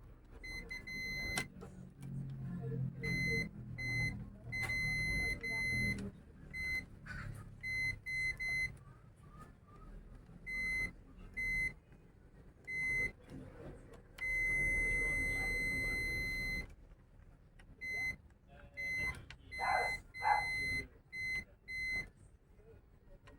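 Digital multimeter's continuity beeper giving a series of short, same-pitched beeps as the probes touch points on a circuit board, with one long beep of about two and a half seconds near the middle. Each beep means the probes have found an unbroken connection.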